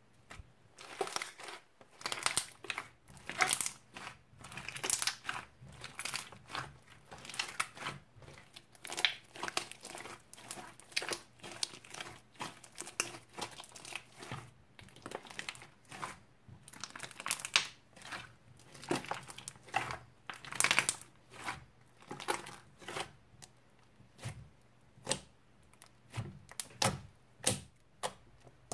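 Thick blue slime with cubes mixed in being squeezed, stretched and kneaded by hand, giving irregular sharp crackles and pops, roughly one every half second.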